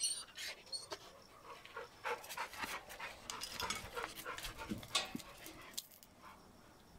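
Two dogs panting and sniffing at each other up close: a quick run of short breathy noises that stops about six seconds in.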